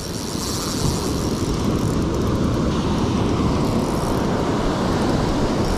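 Ocean surf breaking and rushing on the beach, with wind buffeting the microphone: a steady, low rumbling rush.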